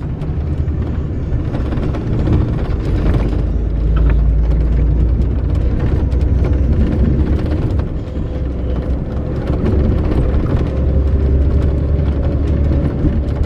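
Steady low rumble of engine and road noise heard from inside a moving vehicle's cabin.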